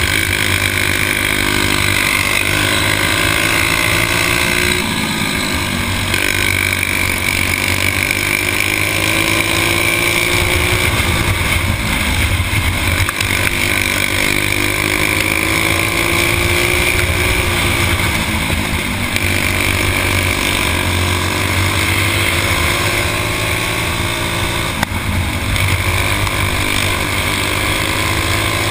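Stock four-stroke racing kart engines running hard at close range. The pitch dips and climbs again several times as the throttle is lifted and reapplied through the turns.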